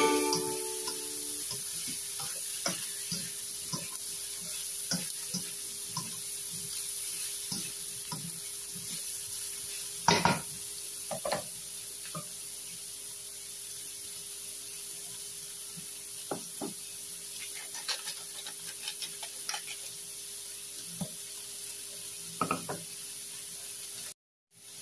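Diced pork sizzling in a stainless steel wok while a spatula stirs it, with scattered scraping clicks and a few louder knocks of the spatula against the pan.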